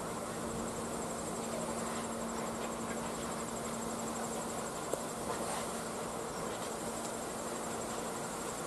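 Insects chirping in a fast, steady, high-pitched pulse over a steady low hum.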